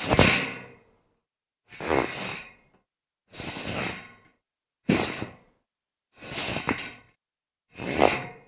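Something sliding across a metal grate, repeated as a series of six separate scraping slides, each under a second long and fading out, with short silences between. A faint metallic ring sits in some of the slides.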